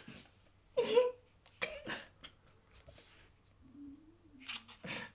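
A woman and a man crying softly: short sobbing gasps and sniffs about a second apart, with a brief low whimper about four seconds in.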